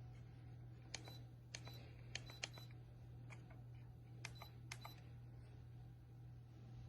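Light, sharp clicks and taps in two short clusters, about a second in and again about four seconds in, over a faint steady low hum.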